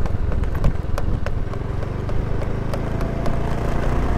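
Motor scooter's small engine running steadily while riding, with scattered sharp clicks and knocks over the low hum.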